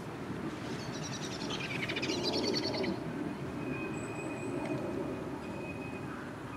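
Miniature railway steam train running on the track as it approaches, a steady low rumble. A bird sings a quick high chirping phrase about a second in.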